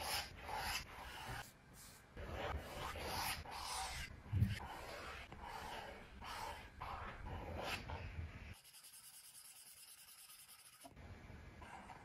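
Stylus tip scratching across a tablet screen in quick, repeated shading strokes, with a soft thump about four seconds in. Past the middle, the strokes give way for about two seconds to a thin, faint hiss, then return more softly.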